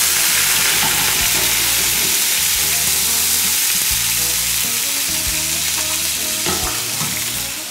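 Marinated chicken breasts frying in hot oil in a pan on a high heat: a loud, steady sizzle that eases slightly near the end.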